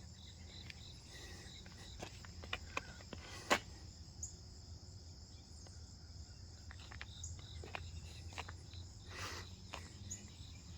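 A steady, high chorus of crickets trilling, with a few brief clicks and rustles, the sharpest about three and a half seconds in.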